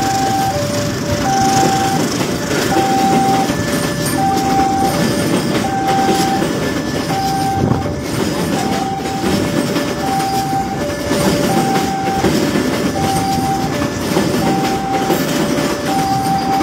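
Indonesian KAI passenger coaches rolling past at close range with a steady rumble and the clatter of wheels over the rails. Over it a two-tone electronic warning signal sounds, alternating a higher and a lower tone, one pair about every one and a half seconds.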